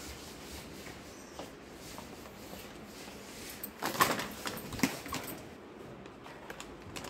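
Faint shop background with scattered small clicks, then a short burst of crinkly rustling and clatter about four seconds in and again near five seconds, as plastic snack packets are handled and dropped into a wire shopping trolley.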